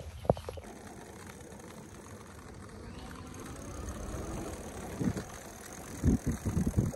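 A vehicle running steadily, with a few short dull thumps near the end.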